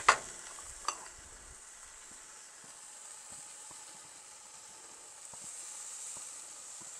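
Chicken drumsticks sizzling on a hot gas grill grate as barbecue sauce is brushed on, a steady high hiss. Two sharp clicks come in the first second.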